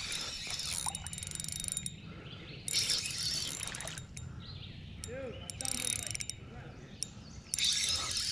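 Fishing reel being cranked in several bursts, each a rapid mechanical whir about a second long, as line is wound in.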